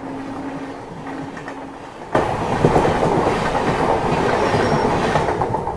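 A passenger train passing at speed on the next track, its coaches rushing by close at hand with a dense rumble and clatter of wheels on rail. A train horn holds one steady note over the first couple of seconds, then the rushing noise jumps sharply louder about two seconds in.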